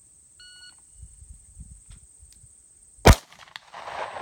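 Shot-timer start beep, then about two and a half seconds later a single sharp 9mm pistol shot from a Smith & Wesson M&P9 Shield, fired after a draw from concealment, with a short echo trailing it.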